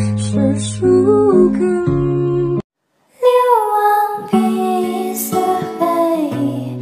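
Background music with plucked strings that breaks off suddenly about two and a half seconds in; after half a second of silence a different piece of music starts.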